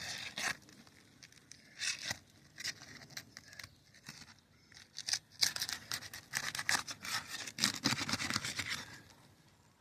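Old three-tab asphalt shingles being pried up to get at the nails: scraping and crackling of the brittle shingle and its loose granules, in bursts that are busiest from about five to nine seconds in. The crackling goes with the shingles cracking as they are lifted only a couple of inches.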